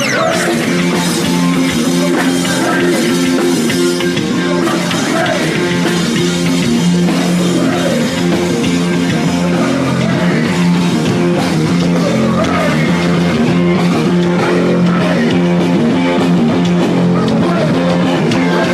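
Rock band playing live: electric guitar, bass and drum kit.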